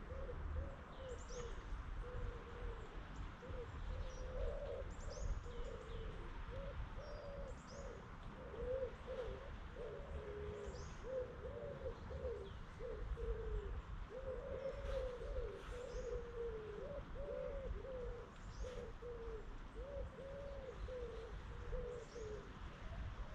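Pigeons cooing steadily in rolling, wavering phrases, with small birds chirping briefly now and then above them and a low rumble underneath.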